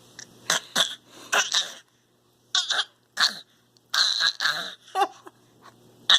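A baby making his trick 'annoying noise': a string of short, breathy squeaks and snorts, about a dozen in quick bunches.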